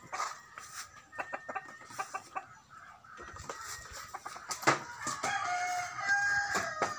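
Backyard chickens clucking in short calls, with a rooster crowing in one long held call near the end. A sharp thump, the loudest sound, comes just before the crow.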